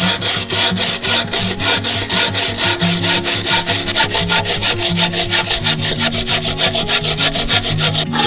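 A saw cutting through a chestnut-wood stake in fast, even strokes, about seven a second.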